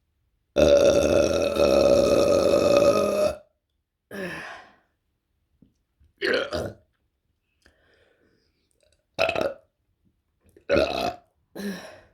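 A woman burping: one long, loud belch of about three seconds, then five short burps a second or two apart.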